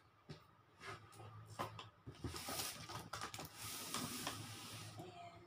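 Cardboard box being opened by hand, with its packing handled: scraping, rustling and small clicks, busiest from about two seconds in.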